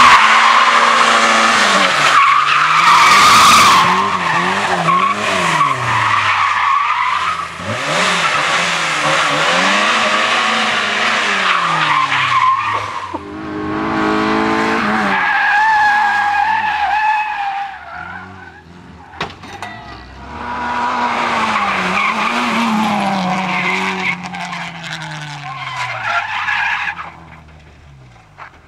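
Competition car engines revving hard, the pitch climbing and dropping again and again through gear changes and lifts, with tyres squealing and skidding. The sound dips to a quieter stretch about eighteen seconds in, then picks up again.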